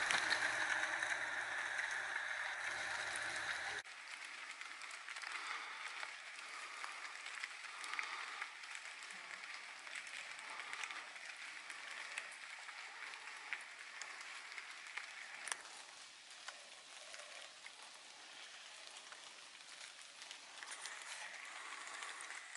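Steady rain pattering on leaves and ground, with scattered sharp drips. For the first few seconds, louder and before a sudden drop, a vehicle engine runs low under the rain noise.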